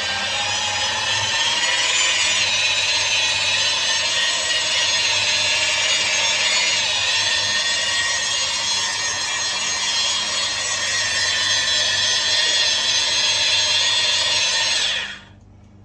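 Rotary power tool with a sanding pad running steadily at speed, wet-sanding a faded plastic headlight lens, with a high motor whine. It cuts off about fifteen seconds in.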